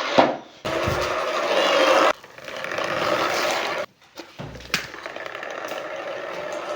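Small DC motor of a homemade cardboard RC car running in stretches. It stops briefly about half a second in, cuts out again a little after the middle, then runs on more quietly.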